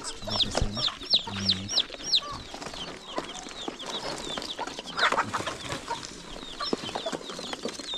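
Broiler chicks peeping: many short, high, falling peeps, quick and dense for the first two seconds and then more scattered, with light clicks among them.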